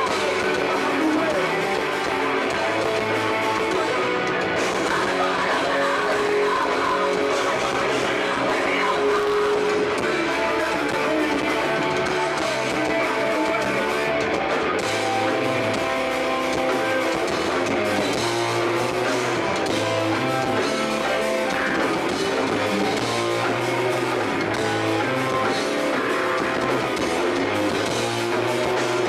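Rock band playing live at a steady loud level: electric guitars strummed over bass and drums.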